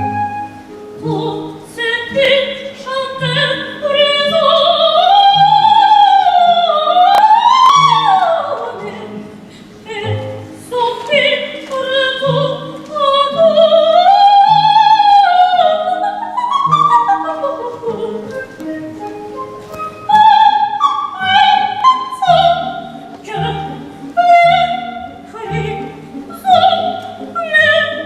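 Classically trained voice singing an operetta number, with strong vibrato and sweeping phrases, including a high rising run about seven seconds in. Instrumental accompaniment underneath keeps a regular bass beat.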